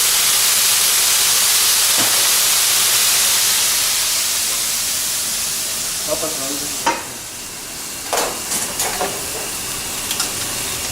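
Food sizzling loudly in a hot pan, with a steady hiss of steam as wine is added; it dies down after about six seconds. A few clinks follow near the end.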